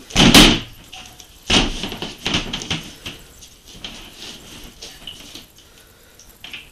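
Two hard hand strikes on a freestanding rubber-skinned training dummy, the first just after the start and the second about a second and a half later, followed by lighter knocks and rustling as the hands handle the dummy.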